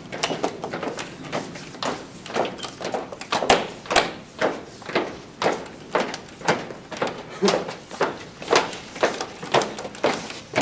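Footsteps of a group walking on a hard hallway floor, an even beat of about two steps a second.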